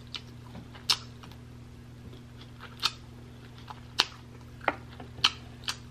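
A person chewing a honey-glazed lamb chop with mouth clicks and smacks, six or so short sharp ones at irregular intervals, over a faint steady hum.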